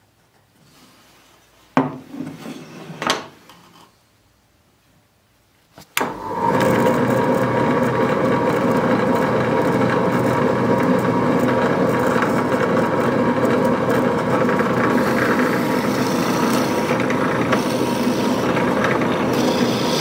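A few short knocks and scrapes of wood being handled, then about six seconds in a benchtop drill press starts and runs steadily, its bit boring into a wooden dowel.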